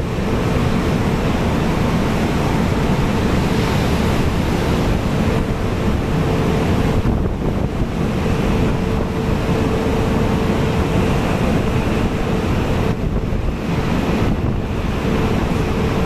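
Storm wind buffeting the microphone over rough North Sea waves, with a huge wave breaking against the oil platform about two seconds in and its wash swelling for several seconds after. A steady hum sits underneath.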